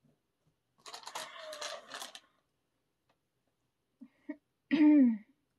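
Album packaging and paper contents handled, a dense crackle of rustling and small clicks lasting about a second and a half. Near the end comes a short, louder wordless vocal sound that falls in pitch.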